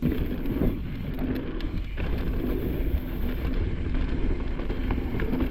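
Wind buffeting the microphone of a bike-mounted or helmet camera as a mountain bike descends a dry dirt trail at speed, with the tyres and bike clattering over the rough ground. The noise comes in suddenly at the start and stays loud and steady.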